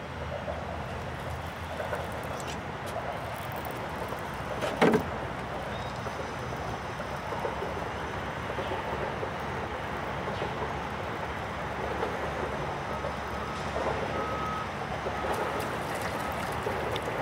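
Steady rumble of motor-vehicle noise, with one sharp knock about five seconds in. Faint short beeps repeat near the end.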